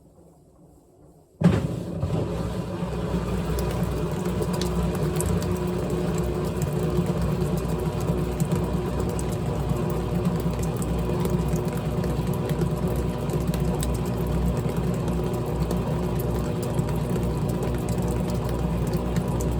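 GE top-load washing machine starting up suddenly about a second and a half in, then running steadily with a low rumble and a constant hum.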